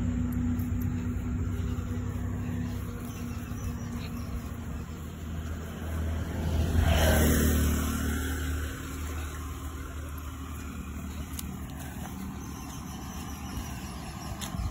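Road traffic: a steady low engine hum, with a vehicle passing on the road that swells and fades about halfway through.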